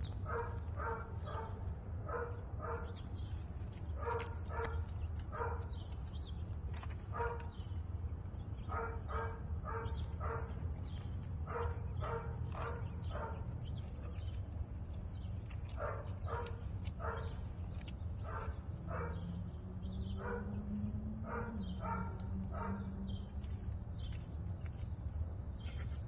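An animal calling in short, evenly pitched calls, repeated in runs of several at a time, over a steady low hum.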